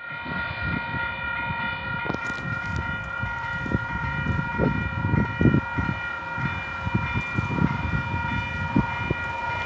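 Railway level crossing warning bells ringing steadily while the red lights flash and the barrier arms lower. Irregular low thumps run underneath.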